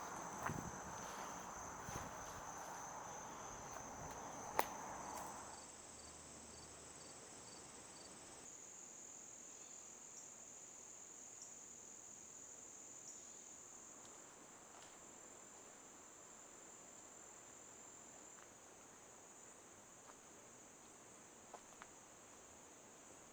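Faint chorus of insects making a steady, high trill. A broad hiss under it falls away about five and a half seconds in, and there is one sharp click about four and a half seconds in.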